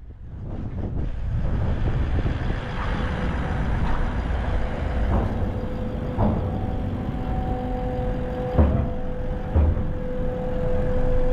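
A vehicle's engine and road noise, heard as a steady low rumble, fading in at the start, with several sharp knocks as it drives up the ferry's loading ramp. A steady two-note hum comes in about halfway.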